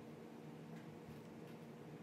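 Faint scratching of a pen tip on paper in a few short strokes, over a steady low hum of room tone.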